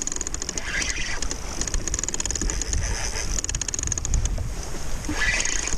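Wind buffeting the microphone, with water slapping against a plastic fishing kayak's hull: a steady, even rumble and hiss.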